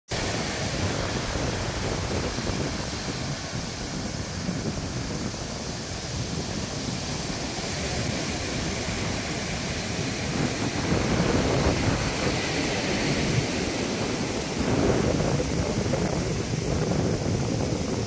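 Heavy surf breaking on a beach, with wind blowing across the microphone.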